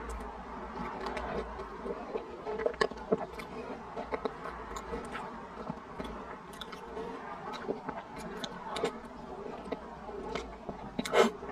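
Close-miked mouth sounds of soft, sticky taro paste and mochi being chewed, with irregular wet clicks and smacks, and a louder click near the end.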